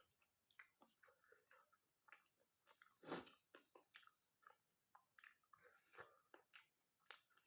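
Faint close-up chewing of chicken curry and rice, with irregular soft mouth clicks and smacks. The loudest smack comes about three seconds in.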